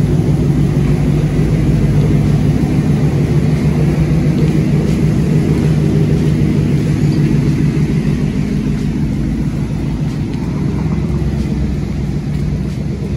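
Red GMC single-cab pickup's engine running through its dual exhaust as the truck pulls out and drives off slowly: a steady, deep exhaust rumble that eases a little near the end as it moves away.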